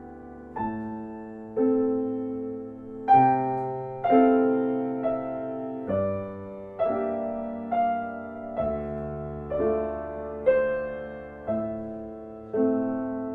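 Background piano music: slow, gentle chords struck about once a second, each fading before the next.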